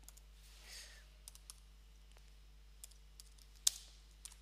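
Typing on a computer keyboard: a few irregular, scattered keystroke clicks, the loudest about three and a half seconds in, over a faint steady hum.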